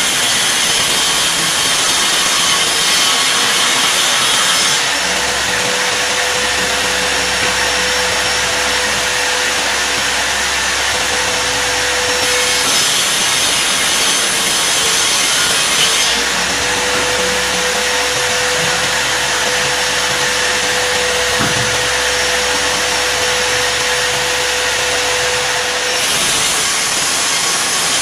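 Table-mounted circular saw running and ripping plywood boards: a loud, continuous whine of the spinning blade with the hiss of it cutting through the wood. Its tone shifts several times as boards are fed through and cuts start and finish.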